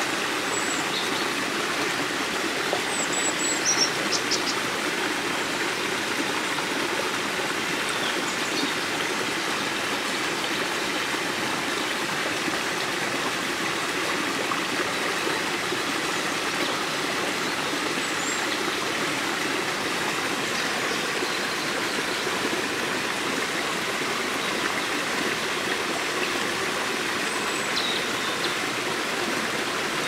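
Small woodland stream running over rocks in a little cascade: a steady babble of water. A few brief high chirps sound faintly above it.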